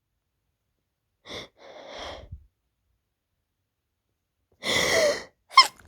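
A woman's allergy sneezing fit, set off by dust: after a pause, two short quiet breaths about a second and a half in, then a loud gasping in-breath with a rising voice, and the sharp start of the next sneeze at the very end.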